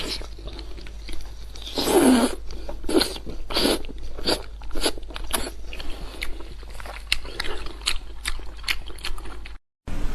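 Close-miked eating of an octopus tentacle: biting and chewing in irregular short clicks and smacks, with a louder bite about two seconds in. The sound drops out briefly near the end.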